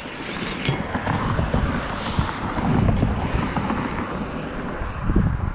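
Gloved hands handling a magnet-fishing rope over a bridge railing: uneven rubbing and knocking with a low rumble, and a louder knock about five seconds in.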